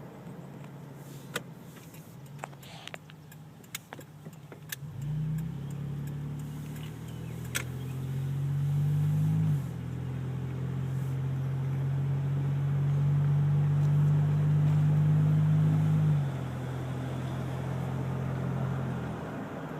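Nissan Xterra making a low droning hum that comes in about five seconds in, shifts in pitch and level twice, and drops away near the end; this is the odd noise the owner is recording. A few sharp clicks and light jingles come before it.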